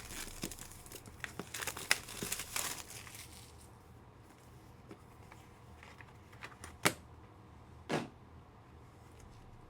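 Foil trading-card pack being torn open, its wrapper crinkling for the first three seconds or so. After that come a few scattered clicks and taps as the cards are handled, the sharpest two near the end.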